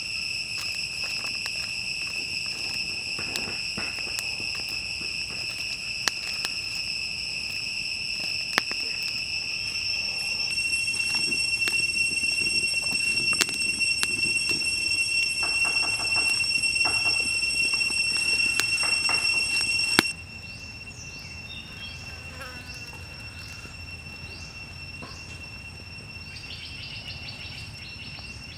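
Steady high-pitched drone of insects, two piercing tones held throughout, with a few sharp clicks of a crackling wood fire; about two-thirds through it drops suddenly quieter.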